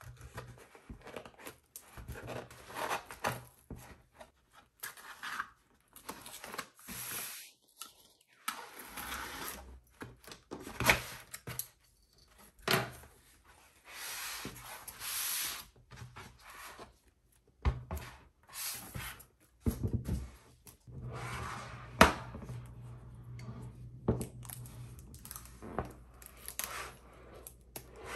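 Packaging being opened and handled by hand: stop-start tearing, rustling and rubbing of paper and cardboard, with a few sharp taps or clicks, the loudest about 22 seconds in.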